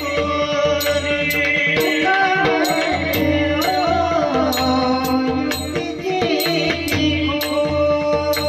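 Devotional Marathi bhajan: a voice singing a melodic line, accompanied by a pakhawaj drum, with short high metallic strikes keeping a steady beat.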